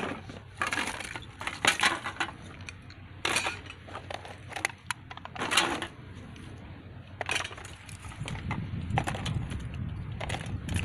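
Gathered litter being dumped into a rubbish bin: a string of irregular clatters and knocks as loose hard objects drop and hit one another, with a low rumble in the last few seconds.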